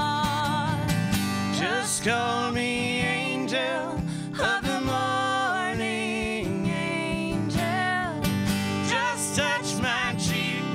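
A woman singing long held phrases with a wavering vibrato over a strummed acoustic guitar.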